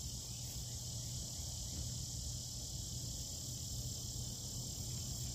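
Steady high-pitched drone of insects, crickets, in an outdoor chorus, even and unbroken, over a low steady rumble.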